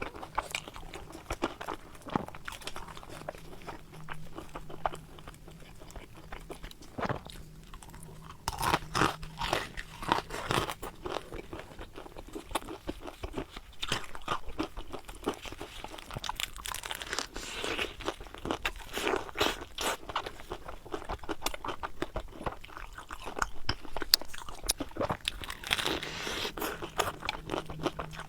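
Crisp, crunchy chewing of battered, deep-fried eggplant sandwiches (qiehe) close to the microphone. Irregular crackly crunches come in clusters, bite after bite.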